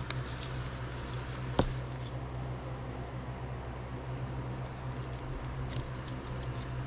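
Trading card being slid into a plastic penny sleeve and a rigid clear toploader by gloved hands: faint plastic rustles and ticks, with one sharp click about a second and a half in. A steady low hum runs underneath.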